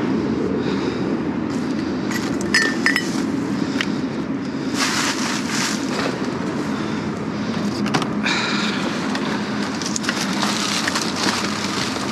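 Rummaging through discarded items: short clinks and knocks, a couple of them ringing like glass, and rustling, over a steady low rumble.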